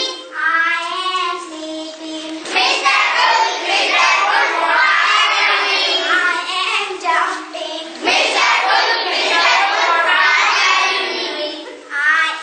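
A group of children singing together, many voices at once, in phrases with short breaks.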